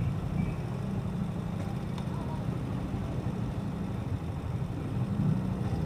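Motorcycle engine idling steadily, with a low, even hum while stopped at a red light.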